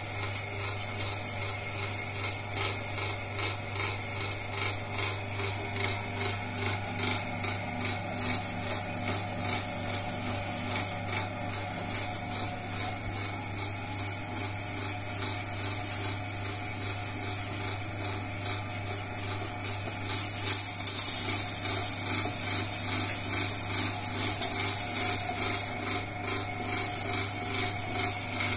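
Motor-driven potter's wheel humming steadily while fingers and a shaping tool rub and scrape the wet clay of a spinning vase's neck. The scraping grows louder about two-thirds of the way through.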